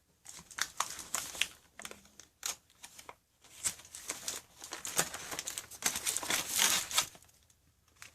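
Packaging being handled and crinkled during an unboxing: irregular crackling rustles and sharp clicks, heaviest in the middle of the stretch and dying down near the end.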